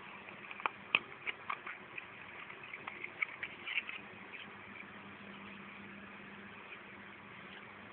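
A plastic cup being handled: a run of light clicks and taps from about half a second in to about four seconds, then only a steady low hum.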